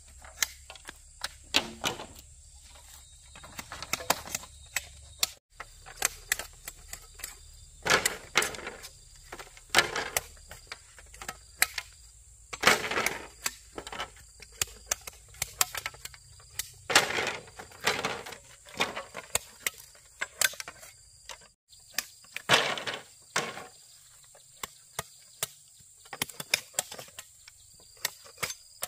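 Irregular knocks, taps and scrapes of hand work on bamboo, with a few longer scraping passes, over a steady high insect drone.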